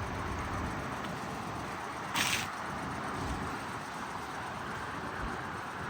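2022 SEAT Ibiza FR on the move: steady engine and road noise, with one short hiss a little over two seconds in.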